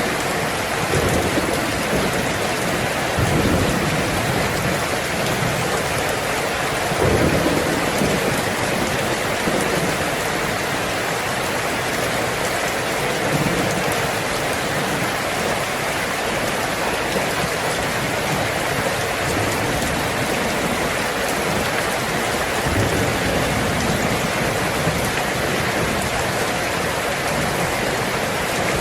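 Heavy rain falling steadily on a tin roof, with low rolls of thunder swelling underneath, the strongest about seven seconds in.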